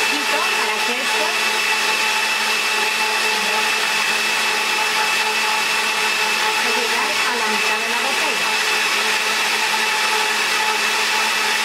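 Countertop blender running steadily, liquefying peaches in syrup with sparkling wine into a smooth purée.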